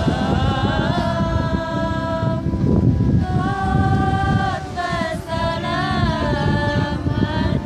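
A group of women singing sholawat, Islamic devotional songs praising the Prophet, together without instruments, in long held and gliding notes. A steady low rumble runs underneath.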